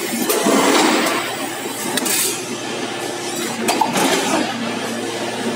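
Multi-station hydraulic press line with a single-arm transfer robot running: a steady machine hum with a few sharp metallic clicks and clinks as the presses and robot cycle.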